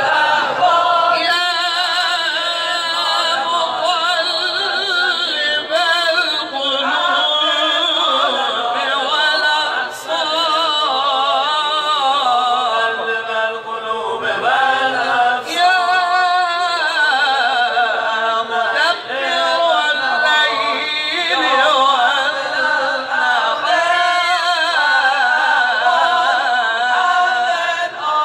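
Voices singing a chant-like song without pause, with long held notes that waver in pitch.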